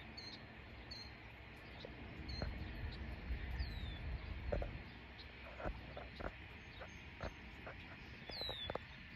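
Outdoor ambience with small birds chirping, including two falling whistled calls. A low rumble swells for a couple of seconds from about two seconds in, and faint clicks are scattered through the second half.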